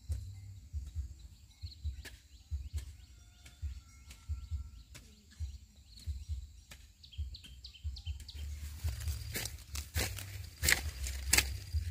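Outdoor rural ambience: scattered light knocks and footstep-like rustling with a few faint bird chirps, turning into a denser crackling rustle about eight seconds in.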